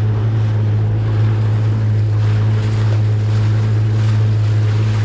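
Outboard motor of a small aluminium boat running at a steady cruising speed, its constant low drone overlaid by water rushing and splashing along the hull and wind on the microphone.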